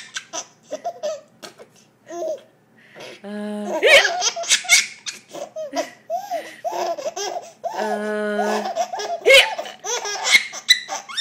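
A baby laughing in repeated short bursts of belly laughter.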